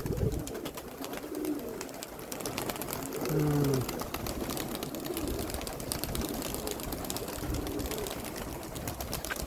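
Domestic pigeons cooing, several short low calls with the clearest about a third of the way in, over gusty wind rumbling on the microphone.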